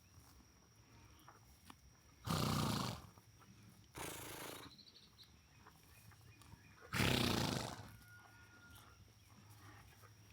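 Horses snorting: three short, breathy blows through the nostrils, about two, four and seven seconds in, the first and last loudest.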